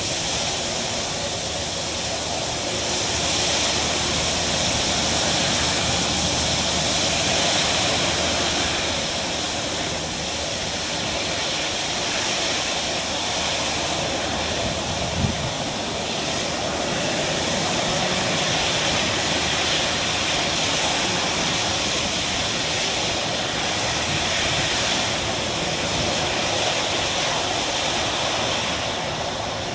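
Boeing 757 twin Rolls-Royce RB211 turbofans at taxi power: a steady jet whine over a rush of noise that swells and eases slightly. A single brief thump about halfway through.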